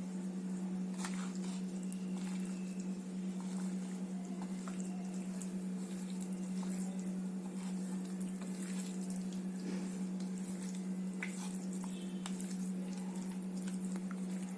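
Boneless fish pieces being mixed into a thick spice and corn-flour marinade: scattered soft wet squelches and clicks, over a steady low hum.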